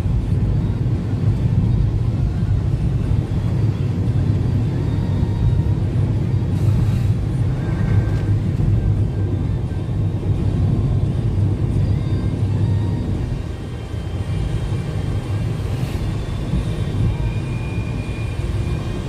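Storm wind buffeting the microphone: a loud, steady low rumble that dips slightly near the end.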